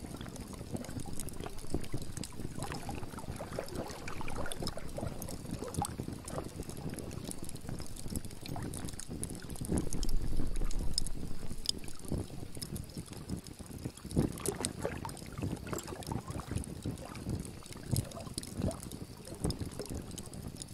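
Ambient water sound: irregular lapping and splashing, with a louder surge about ten seconds in.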